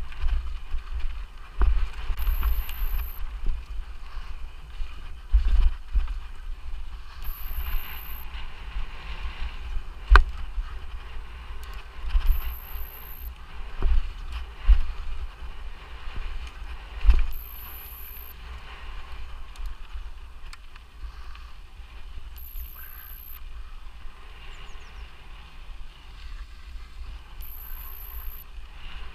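Mountain bike being ridden hard over a dirt trail: tyres on rough ground, the bike rattling, a steady low rumble, and several sharp knocks as it hits bumps. A short high-pitched beep repeats about every five seconds.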